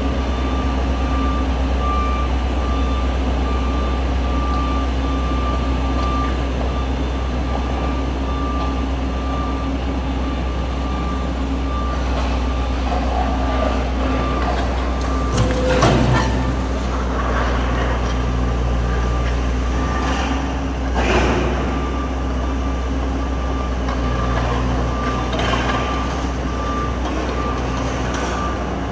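Komatsu PC200 hydraulic excavator's diesel engine running while its travel alarm beeps over and over as the machine tracks across the floor. Two loud knocks stand out, about halfway through and again about two-thirds through.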